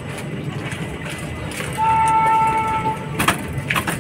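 Steady low rumble of the 14217 Unchahar Express passenger train. About two seconds in, a horn sounds one steady note for about a second. Near the end come two sharp clacks from the wheels.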